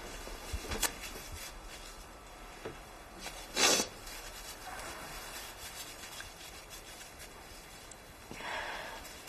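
Quiet room with soft rubbing and rustling as a paper tissue is handled in the hands, with one short louder rustle about three and a half seconds in.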